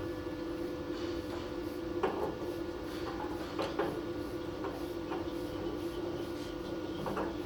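A steady machine hum runs throughout, with a few short knocks, about three of them, as metal parts are handled.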